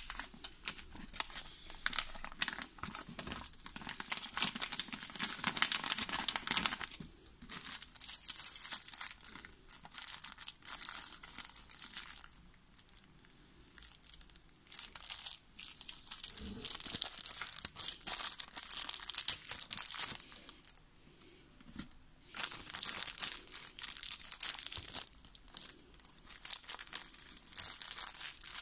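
Thin clear plastic bag crinkling as it is handled and pulled open, in irregular bursts of crackling with a couple of short lulls.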